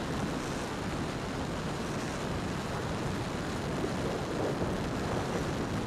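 Steady rushing wind and airflow noise, heaviest in the low end, as an electric E-flite Timber X RC airplane flies low on its landing approach.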